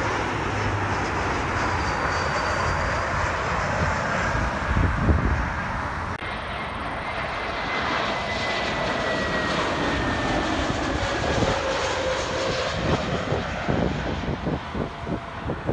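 Jet engines of airliners on final approach: first an Embraer E175 regional jet, then after a cut about six seconds in an Airbus A321, as a steady roar with a faint whine sliding down in pitch as it passes. Near the end, wind buffets the microphone in uneven gusts.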